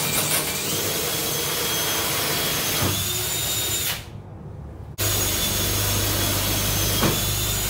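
Electric drill boring through the golf cart's metal roof-support frame: a steady whine that rises slightly in pitch just after the start. It stops about four seconds in, then starts again suddenly a second later and runs on.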